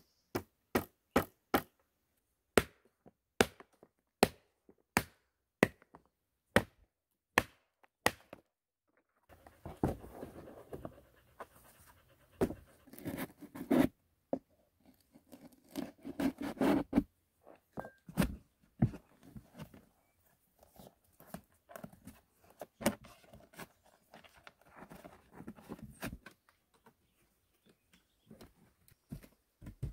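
Sharp wooden knocks, about one or two a second, from poles being fitted into a wooden frame. Then a knife blade scraping and shaving along a thin wooden strip in rough, uneven strokes, with a few sharper knocks and clicks.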